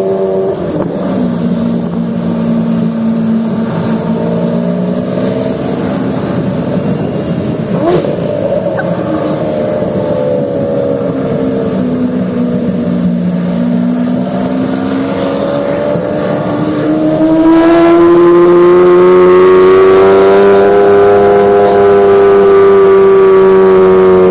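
Lamborghini Aventador's V12 engine running through its exhaust, its note rising and falling gently, with a short blip about eight seconds in. In the last several seconds the revs climb and are held higher, and the sound gets louder.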